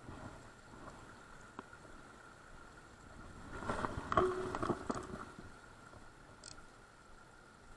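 Shallow river running over stones in a fast riffle, a steady wash of water. About halfway through comes a louder burst of rubbing and knocks from handling close to the microphone.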